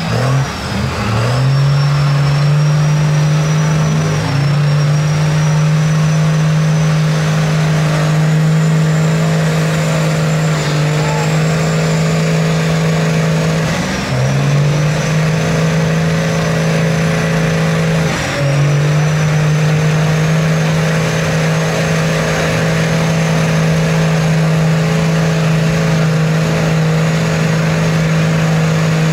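Lifted Dodge Ram pickup's engine held at steady high revs while its big mud tires spin in a deep mud hole, the truck barely moving. The revs dip briefly and climb back a few times.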